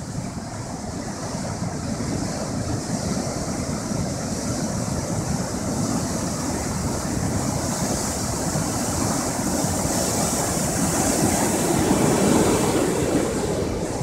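Pacific surf: heavy waves breaking and whitewater rushing in against a concrete seawall, a steady rushing roar that slowly builds to its loudest a couple of seconds before the end.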